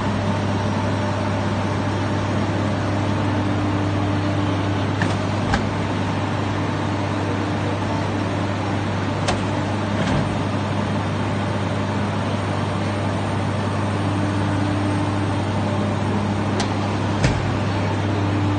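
A steady low machine hum runs throughout, with fainter tones above it that come and go, and a few sharp clicks and knocks scattered through.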